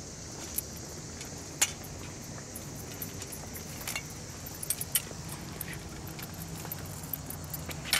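Light metallic clinks and rattles at irregular intervals, from a metal camera tripod being carried at a walk, over steady low background noise.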